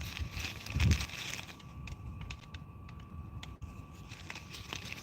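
Faint clicks and taps of a multi-piece travel fishing rod being handled and fitted together, over a low rumble, with a soft thump about a second in.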